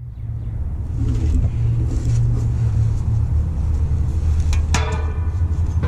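Vehicle engine running, a steady low rumble. A short metallic clink rings out near the end.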